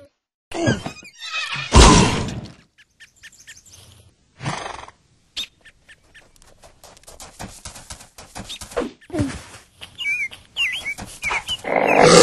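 Cartoon sound effects: a heavy crash about two seconds in as a lamp post is knocked over, then a long run of quick light taps, a few short chirps, and a loud rough sound near the end.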